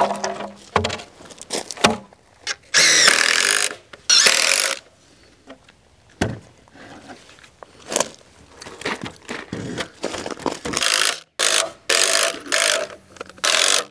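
Cordless impact driver driving screws into lumber boards in several short bursts of about a second each. Between them come scattered knocks of boards being handled.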